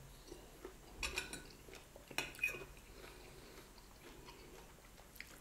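A few faint clinks and scrapes of cutlery against a plate as fried fish is eaten, in two small clusters about one and two seconds in.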